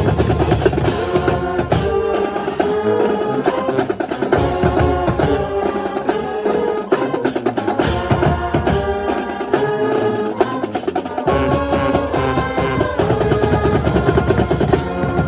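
School band playing a piece with a full ensemble melody over snare and bass drums, loud and continuous, with a drum roll in the percussion.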